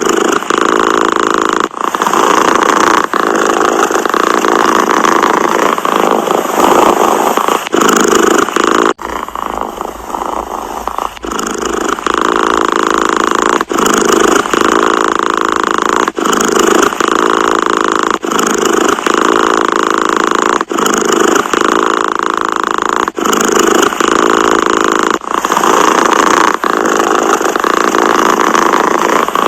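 Domestic cat purring loudly and continuously, the purr breaking briefly with each breath about every two seconds. It goes softer for a few seconds about a third of the way in.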